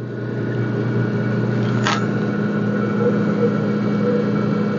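Steady engine-room machinery running, with a low hum that grows louder over the first second and then holds steady. A short click comes about two seconds in.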